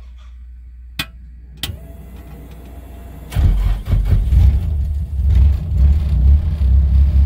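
Switches clicking three times on the dash panel, then the Nissan SR20DET turbo four-cylinder starts suddenly about three and a half seconds in and runs with a low, uneven rumble.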